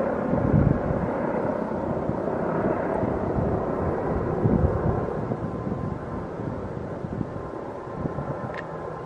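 Mi-24 helicopters flying past at a distance: a steady rumble of rotors and engines with a faint steady whine and some wind on the microphone, slowly fading toward the end.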